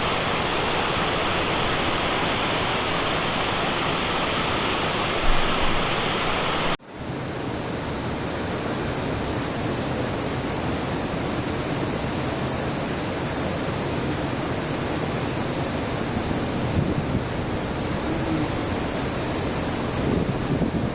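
Dudhsagar Falls: the steady rush of a large waterfall, falling water heard as an even hiss. It drops out sharply for a moment about seven seconds in, then returns slightly duller.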